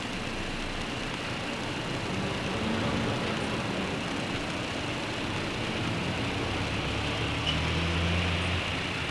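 Steady rain hiss with a vehicle going by: a low engine hum comes up about two seconds in, grows slightly louder, and fades shortly before the end.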